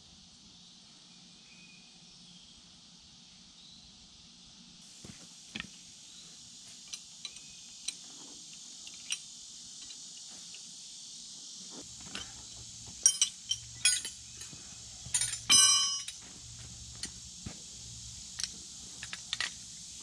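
Metal clinks and taps of hose fittings and tools being handled, with a cluster of louder ringing clinks a little after the middle. Under it, a steady high drone of insects.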